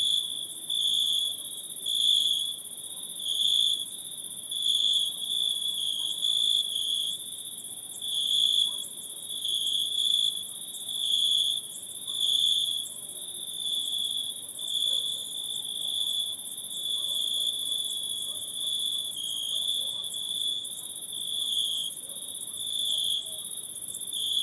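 Chorus of night insects: a shrill steady trill that swells and fades every second or so, over a continuous higher-pitched insect hiss.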